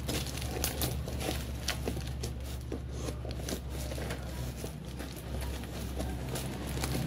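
Scissors snipping and cutting through a taped cardboard parcel, with irregular crackling and crinkling of packing tape and wrapping, over a steady low hum.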